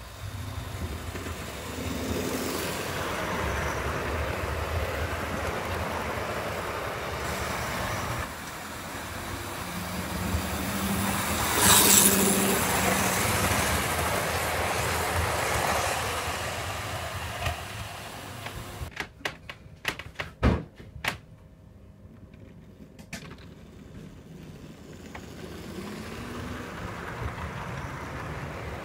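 Model InterCity 125 train running on the layout's track: the steady hum and rumble of its motor and wheels on the rails, loudest as it passes close about twelve seconds in. A quick run of sharp clicks comes around twenty seconds in, after which the running sound is fainter.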